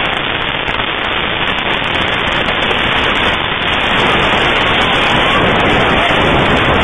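Loud, steady rush of noise, like heavy rain or static, in the seconds after an explosion's blast wave has blown in a room's windows. Faint voices rise through it about four seconds in.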